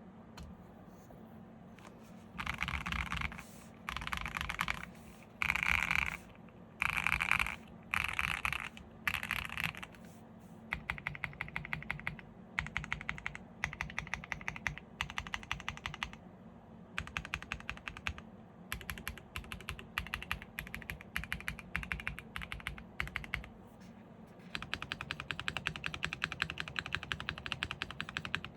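Mode Sonnet custom mechanical keyboard with a polycarbonate plate, stock WS Quartz switches and full foam, being typed on. It starts with six short bursts of very fast keystrokes about a second each, then single keys pressed one after another at a steady pace, then a long run of fast continuous typing near the end.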